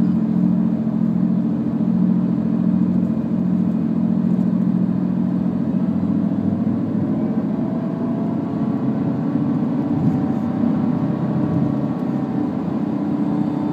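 Nissan Altima running with a steady low hum, over which a siren-like tone glides up and down, clearer in the second half. The owners do not know what causes this siren noise.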